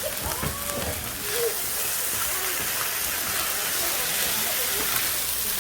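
Food sizzling on a large iron griddle: a steady frying hiss, with voices talking faintly in the background.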